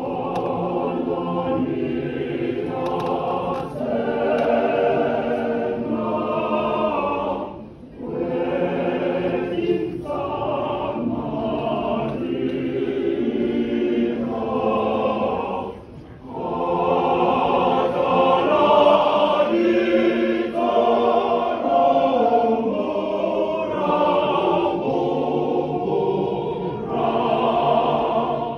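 A church choir of men and women singing together, with two brief pauses between phrases.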